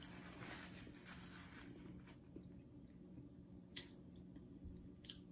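Faint chewing and wet mouth sounds from a person eating baked steak by hand, with two short soft clicks near the end over a faint steady low hum.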